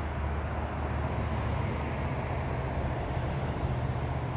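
Steady low vehicle rumble with an even hum underneath, unchanging throughout.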